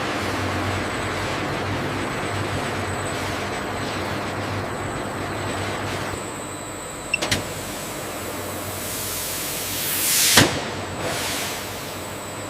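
Steady machinery hum, with a sharp click about seven seconds in and a whoosh that swells and cuts off about ten seconds in.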